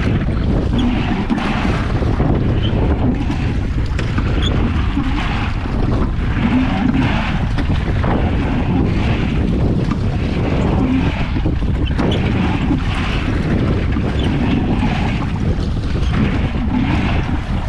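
Wind buffeting the microphone on a small boat crossing choppy lake water, with water splashing and lapping against the hull.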